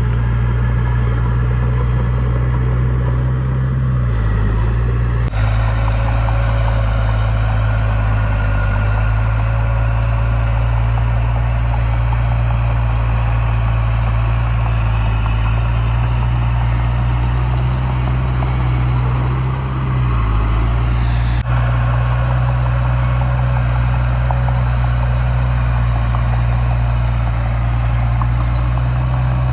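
Heavy diesel engine of earthmoving equipment running steadily, with a brief dip in pitch about four seconds in and again about twenty seconds in.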